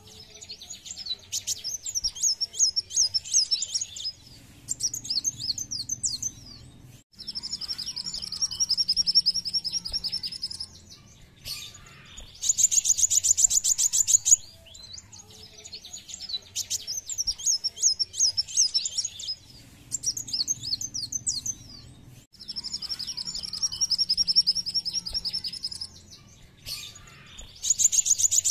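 Kolibri wulung sunbird singing: loud bursts of rapid, high-pitched twittering trills, each a few seconds long, separated by short pauses. The same sequence of phrases comes round again about every 14 seconds.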